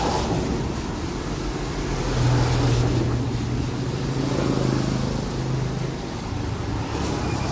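Roadside motor traffic: a steady wash of vehicle noise, with a low engine hum from a vehicle from about two seconds in until about six seconds in.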